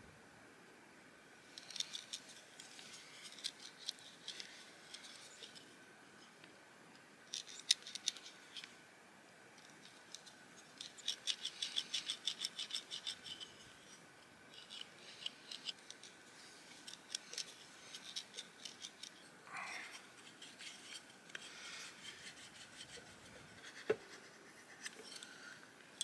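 Stone knife blade scraping and shaving a wooden stick in runs of quick, short strokes, with pauses between the runs.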